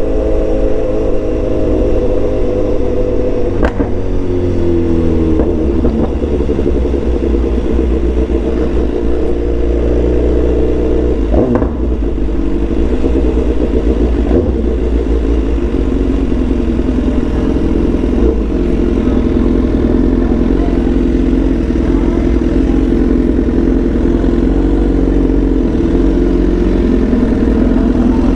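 BMW S1000XR inline-four engine running through a full exhaust system while riding. Its note sinks over the first few seconds as the bike eases off, then holds fairly steady. A low rumble sits underneath, and there are two short knocks.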